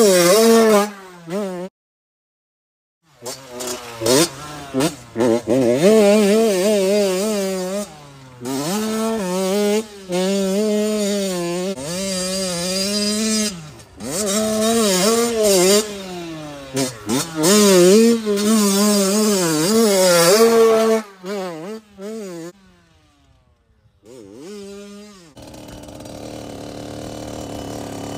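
A 2001 Honda CR80's 80cc two-stroke single-cylinder engine being ridden hard, its pitch rising and falling again and again as the throttle is opened and shut through the gears. The sound breaks off briefly twice, and it is quieter near the end.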